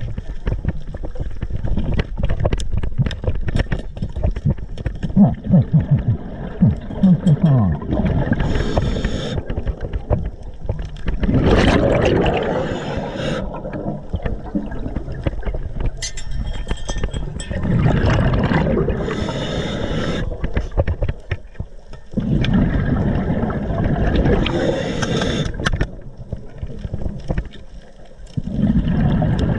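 Underwater noise: sharp clicks and knocks for the first several seconds, then rushing bursts of bubbles a few seconds apart.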